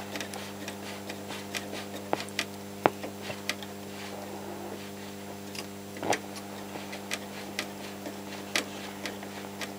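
AWA Radiola 467MA valve radio tuned off-station: a steady mains hum from its speaker with scattered clicks and crackles, and no station coming through. It is a station the owner usually receives on other radios, and he suspects weak valves.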